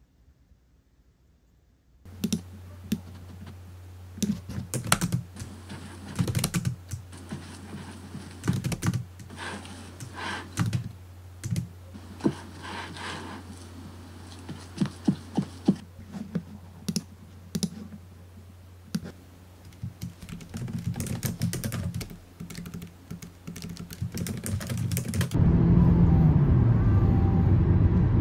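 Typing on a laptop keyboard: irregular runs of key clicks over a steady low hum, starting about two seconds in. About 25 seconds in, a louder low rumble replaces it.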